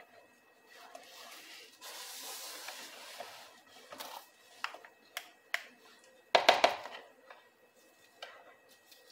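Silicone spatula stirring soap paste in a plastic measuring jug: soft scraping and a few light knocks, with a short, louder clatter about six and a half seconds in.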